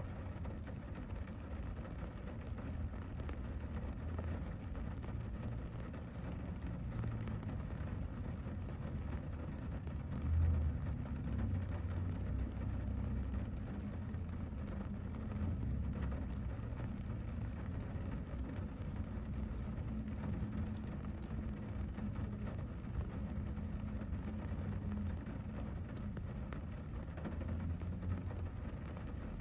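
Steady rain, an even hiss over a constant low rumble.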